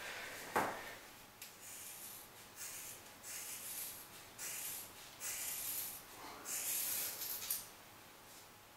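Faint, repeated rustling swishes of long hair being gathered and pulled by hand into a ponytail, with a short click under a second in.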